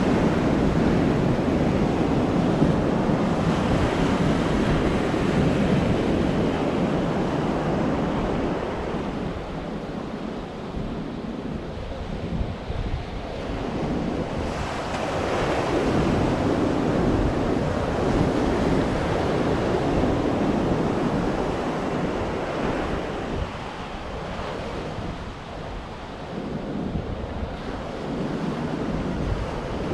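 Ocean surf, waves breaking and washing up the shore, swelling and easing every several seconds, with wind rumbling on the microphone.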